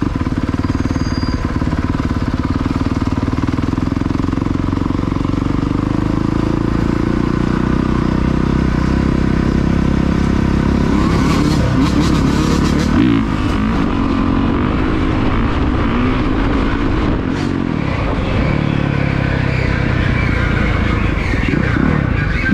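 Motorcycle engines running at a street parade, revved up and down about halfway through and again near the end.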